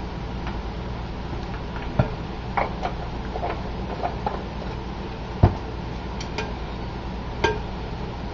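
Wooden chopsticks tapping and clicking against a glass mixing bowl while tossing shredded pork and pork skin: scattered light clicks at irregular intervals, the sharpest about halfway through, over a steady low hum.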